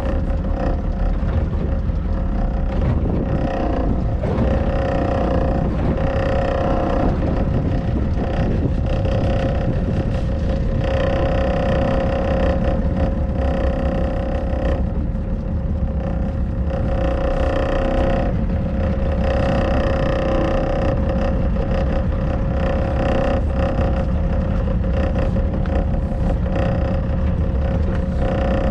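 Small pleasure boat's engine running steadily under way: a continuous low rumble with a steady humming tone riding above it.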